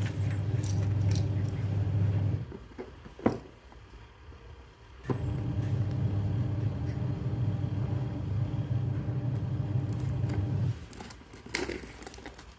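A steady low engine-like hum that cuts out after about two and a half seconds and comes back about two and a half seconds later, then fades near the end. A few sharp clicks and taps come from handling the phone's cardboard box.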